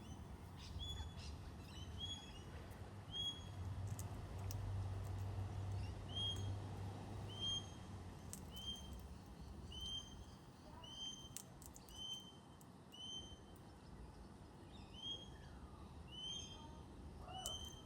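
A bird calling a short, high, slightly rising note over and over, about once a second, with scattered faint clicks and a low hum in the first half.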